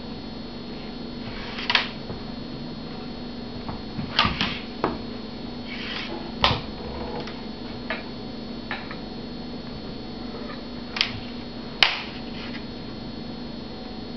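Handling noise from a banjo and its leather cradle strap: a handful of sharp, irregular clicks and knocks as the strap's metal fittings and the banjo's hardware are moved and the banjo is set into a stand, over a steady low hum.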